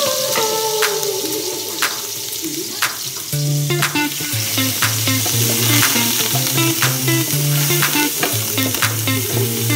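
Chopped aromatics sizzling in hot oil in a large aluminium pot, stirred with a wooden spatula that clicks and scrapes against the pot now and then. Background music with a repeating bass line comes in about three seconds in.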